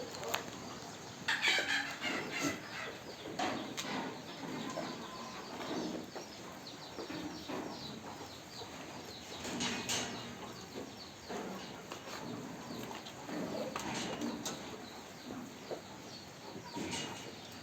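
Farmyard poultry clucking and moving about, with scattered short calls, rustles and knocks.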